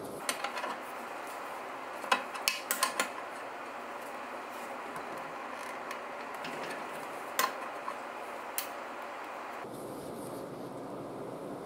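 Scattered metallic clicks and clinks of a box-end wrench working the bolt of a crankshaft straightener as it is tightened to bend a lawnmower crankshaft back straight, over a steady background noise. The clinks come in a cluster over the first few seconds, then twice more a little later.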